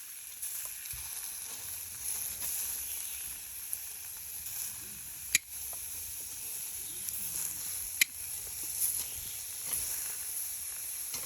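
Hot dogs sizzling as they cook, a steady hiss with a few sharp pops.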